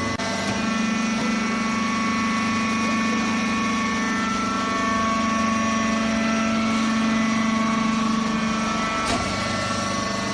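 Rice husk baler running with a steady mechanical hum made of several held tones. About nine seconds in there is a single sharp knock and the hum's strongest tone eases off.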